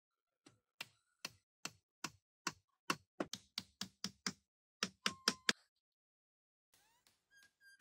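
A run of about seventeen sharp knocks, at first about two a second, then faster, ending in a quick cluster about five seconds in. Faint rising squeaks follow near the end.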